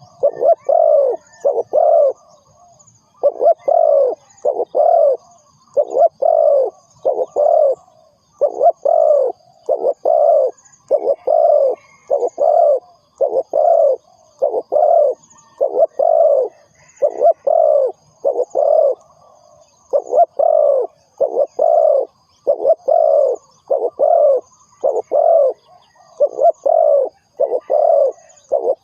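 Spotted dove cooing over and over: short phrases of two or three low, falling coos, repeated every second or two.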